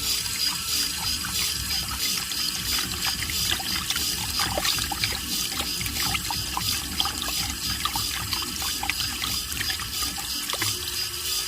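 Water trickling with many small irregular splashes and drips, over a faint steady high-pitched tone.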